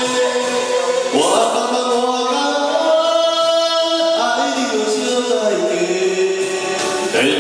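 Amateur duet singing into microphones over a backing track: a woman's and a man's voices at first, then the man singing on alone from about halfway through.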